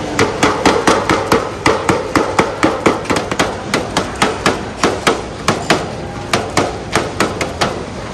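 Rapid pounding of skewered grilled bananas on a plastic cutting board with a plastic-wrapped tool, flattening them. The sharp thuds come about four a second and stop shortly before the end.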